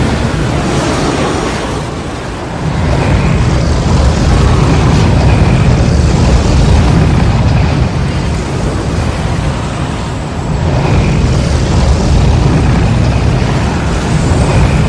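Tornado roar sound effect: a loud, continuous deep rumbling roar that surges and eases, dipping briefly about two seconds in and again around ten seconds before swelling back up.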